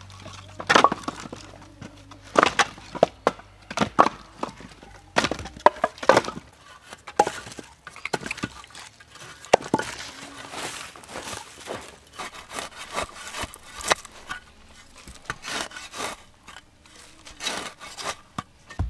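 Split firewood logs knocking and clattering together as they are tossed onto a woodpile and stacked, in irregular sharp clacks.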